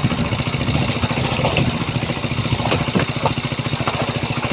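An engine running steadily at idle with a fast, even chugging beat.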